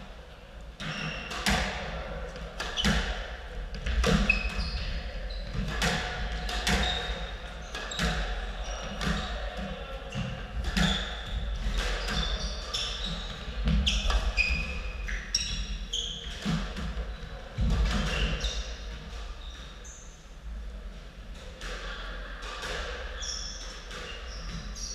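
Squash rally: the ball cracking off rackets and the court walls in an irregular string of sharp hits, mixed with short high squeaks of shoes on the wooden floor. The hits thin out about 19 seconds in as the rally ends.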